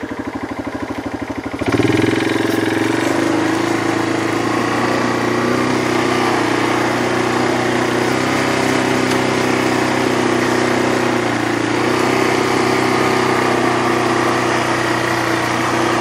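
A small vehicle's engine ticks over at a low speed, then picks up about two seconds in and runs steadily under way, its pitch sagging slightly a couple of times.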